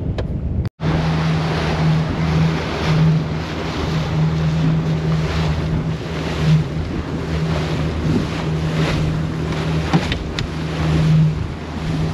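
A boat's motor running at a steady drone while under way, with wind buffeting the microphone and water rushing past. The sound drops out briefly under a second in.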